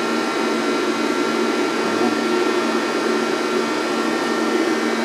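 Steady hum and whine of a CNC lathe running, several constant tones over an even mechanical noise.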